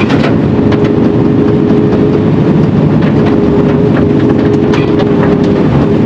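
Cab interior of a Mercedes-Benz Actros SLT heavy-haul tractor driving on a wet forest road: a steady diesel engine and road drone with a held humming tone, and a few short clicks and knocks.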